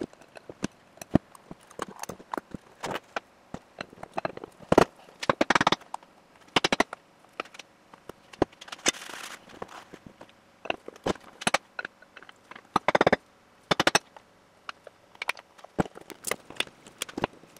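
Irregular clicks, knocks and clatter of CV joint parts and axle shafts being handled and fitted together on a wooden workbench, some in quick runs of several clicks, with a brief rustle about nine seconds in.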